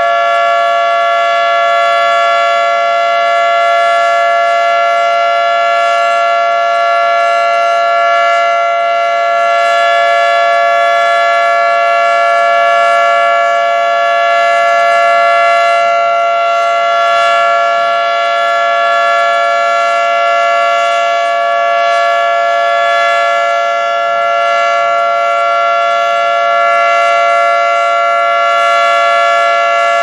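Federal Signal 3T22B tornado siren sounding its steady Alert signal during a test: a loud, held chord of several tones that neither rises nor falls, its loudness swelling and fading slightly.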